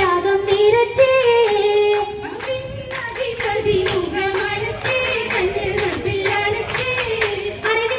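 An Oppana song, a Mappila folk song from Kerala, sung live with a wavering, ornamented melody. It is accompanied by the dancers' rhythmic handclaps.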